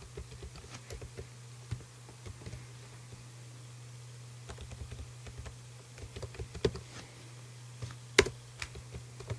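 Typing on a computer keyboard: irregular runs of key clicks with pauses, and one sharper, louder click near the end. A steady low hum runs beneath.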